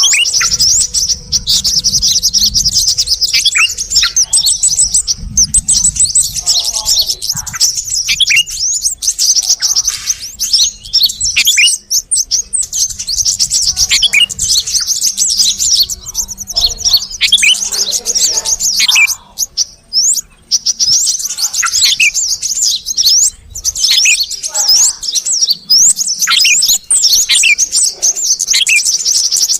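Dense, continuous chattering and chirping of bulbuls, a bird-trapping lure mix of yellow-vented bulbul (trucuk) and sooty-headed bulbul (kutilang) calls, with many quick falling notes.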